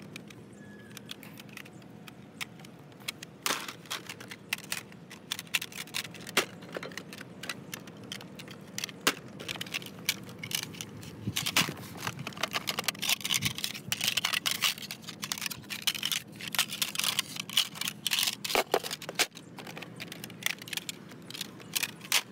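Small hard objects being handled: scattered clicks, clatter and rustling, sparse at first and busier from about nine seconds in.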